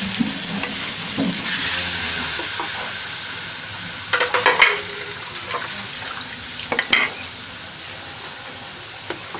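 Raw chicken pieces sizzling in hot oil in a metal wok with garlic and onion. A plastic spatula scrapes and stirs against the wok in two short bursts, near the middle and about two-thirds through. The sizzle eases off toward the end.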